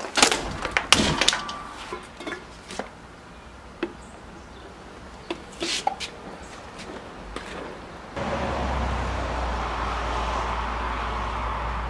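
Scattered knocks and clunks of a door and of a metal can and plastic bottles being set down on a concrete porch ledge. About eight seconds in, a steady outdoor rumble and hiss starts abruptly and holds.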